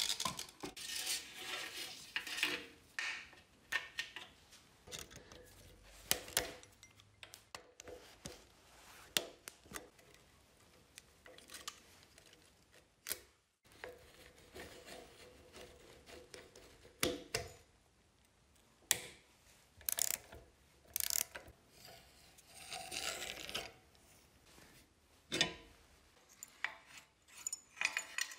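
Hands and tools working on the metal parts of an old Soviet motorcycle being taken apart: scattered metallic clicks and clinks, with short stretches of scraping and rubbing as parts are twisted and pulled loose.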